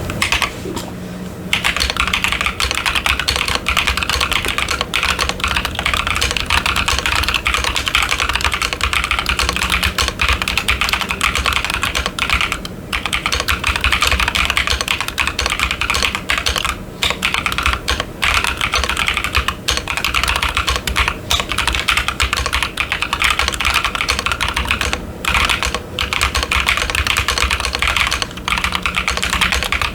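Continuous typing on a stock Keychron Q10 mechanical keyboard fitted with Ashkeebs Amethyst switches and doubleshot PBT keycaps: a dense run of keystroke clicks, broken only by a few brief pauses.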